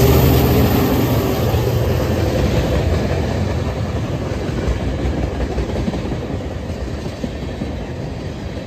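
Freight train passing close: the diesel locomotive's engine drone fades out in the first second or so, then tank cars roll by with the wheels clattering on the rails, the sound slowly dying away as the train moves off.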